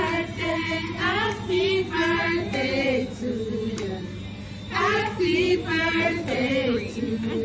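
Restaurant waitstaff singing a birthday song together as a group, several voices in sung phrases.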